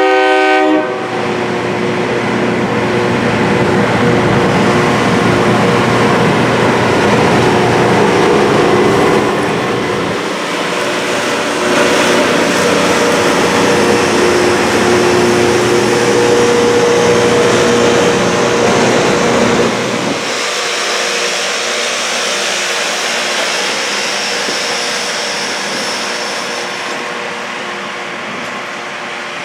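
Loram rail grinder train passing with its grinding stones working the rails: a loud, harsh, hissing grind with steady whining tones. The tail of a train horn blast cuts off within the first second. About twenty seconds in the grinding falls away and the noise slowly fades as the train moves off.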